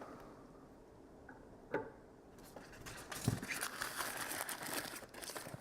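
Packaging being handled: a sharp click, then a dull knock, then a few seconds of crinkling, rustling wrap or foam as a statue part is put back into its box.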